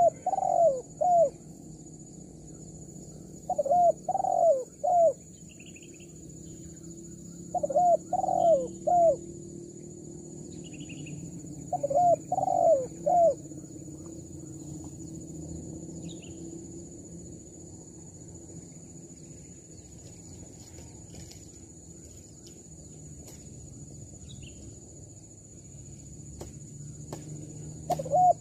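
Spotted dove cooing: phrases of three or four rising-and-falling coos, one phrase about every four seconds through the first half, then a long pause before another phrase near the end.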